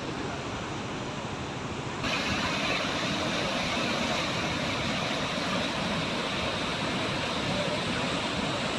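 Mountain waterfall rushing, a steady noise of falling water. About two seconds in it turns abruptly louder and brighter, then holds steady.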